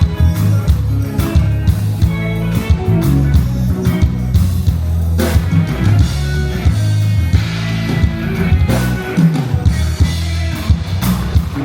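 Loud music played over a concert sound system at a sound check, with a heavy bass line and a steady drum beat.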